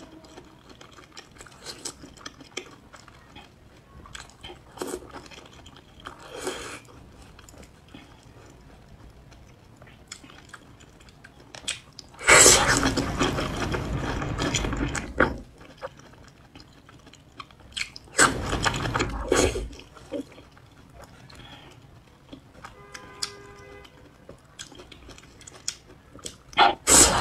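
Close-miked eating of whole green peppers in chili oil: wet chewing with many small mouth clicks, broken by two loud slurping spells, a longer one of about three seconds midway and a shorter one later.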